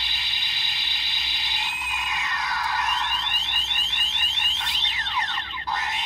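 DX Desire Driver toy belt, with the Typhoon and Boost Raise Buckles set in it, playing its electronic sound effects through its small built-in speaker. Steady tones give way about three seconds in to a quick run of rising chirps, followed by falling swoops near the end.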